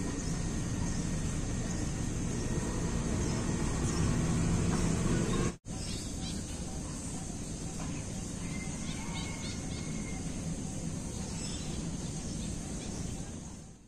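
Steady outdoor background noise, strongest at the low end, with a brief dropout about five and a half seconds in. A few faint bird chirps come through in the second half.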